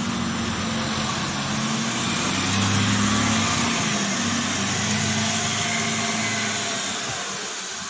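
A small Maruti Suzuki van's engine running as it drives past close by, over a wet road. It grows louder to about halfway, then slowly fades.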